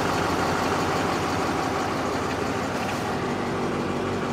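Chevrolet LMM Duramax 6.6-litre V8 turbodiesel idling steadily, heard from inside the truck's cab.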